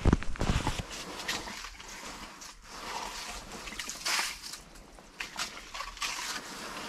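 Ice skimmer scooping slush out of a hole in the ice: irregular scraping and sloshing of wet slush and water, with a heavier bump near the start.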